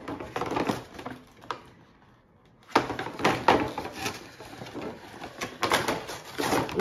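Clear plastic packaging tray and cardboard box rustling and scraping as they are pulled apart by hand. The sound comes in bursts, with a pause of about a second around two seconds in.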